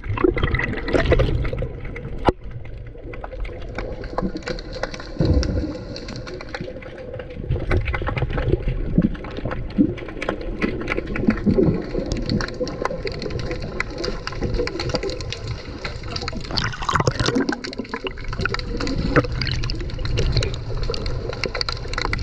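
Water sloshing and bubbling, heard underwater through a GoPro in its waterproof housing: a muffled low rumble scattered with many small clicks and gurgles.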